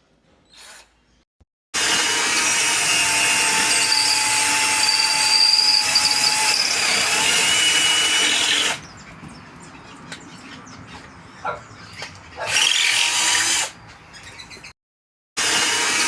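Battery-powered Ecosen cordless drill/driver running in bursts. It starts with one long run of about seven seconds, then comes two short runs near the end, with quieter handling clicks in between.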